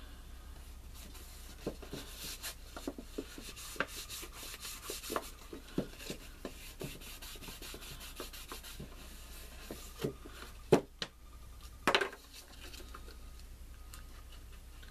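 Cardstock rubbing and rustling as hands press and smooth glued patterned paper panels onto a paper gift box, with many small scrapes and clicks, then a few sharper knocks near the end.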